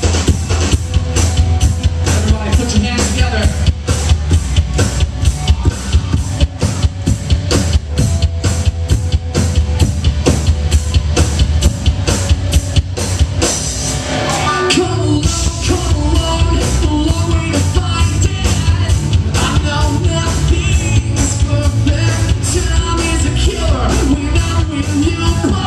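Live rock band playing loudly: drum kit keeping a steady beat under bass and electric guitars. A lead singer's voice comes in strongly about halfway through.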